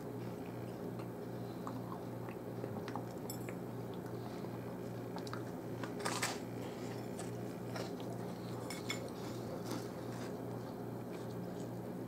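Chewing and crunching a mouthful of graham-cracker s'more, with scattered small crunches and a slightly sharper click about six seconds in, over a steady low hum.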